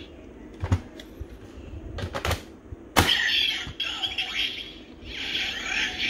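Plastic clicks from a DX Gamer Driver toy belt as it is worked, the loudest about three seconds in, followed by electronic sound effects from the belt's small speaker, with a short break near five seconds.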